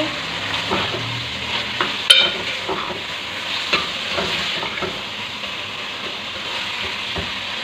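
Mutton pieces frying with sliced onions and ginger-garlic paste in hot oil in an aluminium pot, sizzling steadily while a metal ladle stirs them, scraping and clinking against the pot. A sharp ringing clink of the ladle on the pot comes about two seconds in. This is the searing stage, stirring until the meat changes colour.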